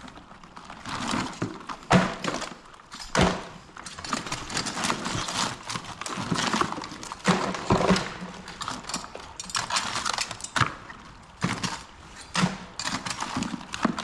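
Live blue crabs being handled one by one as they are counted: hard shells clacking and scraping against each other, with many irregular sharp knocks.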